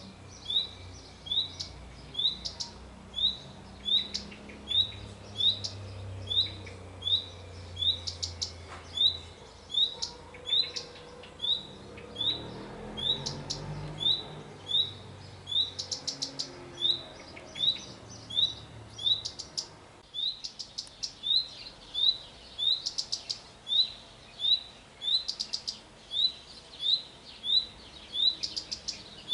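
Male common redstart calling: a short rising whistled note repeated steadily, about three every two seconds, with quick runs of dry 'tic' clicks between them.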